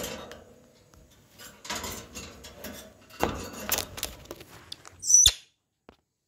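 A wire birdcage rattling in two bouts of metallic clatter as a rose-ringed parakeet climbs and clambers on its bars. Near the end comes a single short, sharp sound with a brief high squeak, the loudest moment.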